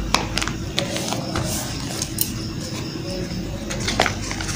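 A sheet of paper rustling and crackling in short, sharp crinkles as hands fold it and pull it open into a paper boat, over a steady background hum.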